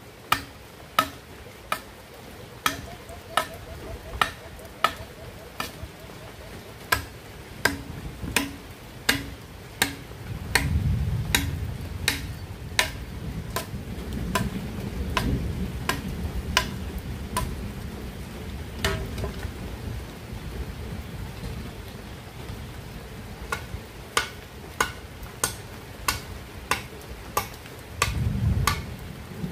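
A bolo knife chopping into a green bamboo pole, sharp knocks at about one to two a second, with a pause of a few seconds past the middle. A low thunder rumble rolls in about a third of the way through and lasts several seconds, with another short rumble near the end.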